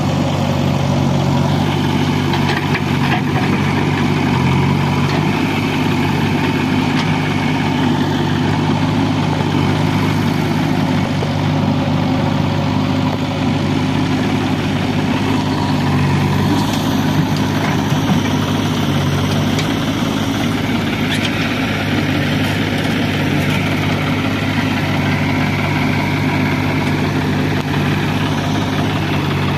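Diesel engines of a JCB 3DX backhoe loader and a John Deere tractor running steadily at a constant pitch, while the backhoe works its arm to load soil into the tractor's trailer.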